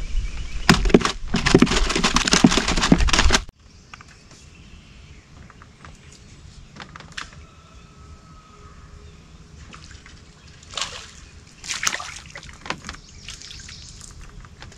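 Water splashing and sloshing with sharp crackles, loud for about three and a half seconds and then cutting off suddenly. Quieter lapping water follows, with a few light knocks.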